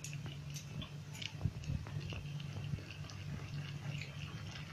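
Faint soft wet squelches and small clicks from thick rice kheer in a steel pot, over a low steady hum.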